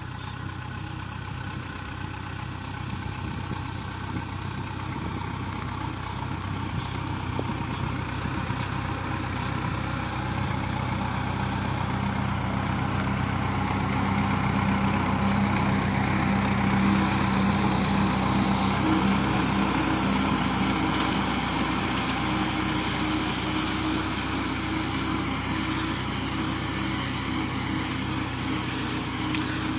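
Farm tractor's engine running steadily while mowing with a side-mounted mower. It grows louder as the tractor comes close past about halfway through, then fades a little as it moves away.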